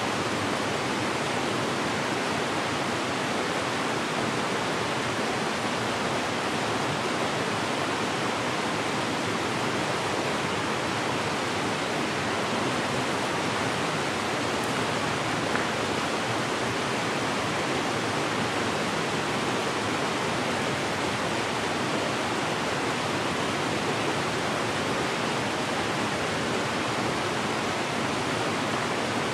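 A small mountain creek rushing over rocks in a steady, even wash of water noise.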